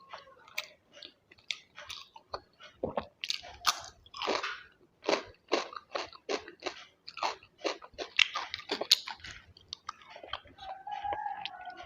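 A person chewing a mouthful of food close to the microphone, with crunchy, sharp chews in a steady rhythm of about two to three a second.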